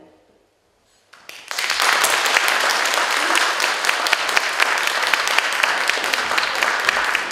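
The last of the music fades out, followed by a moment of near silence, then an audience breaks into applause about a second in and keeps clapping steadily.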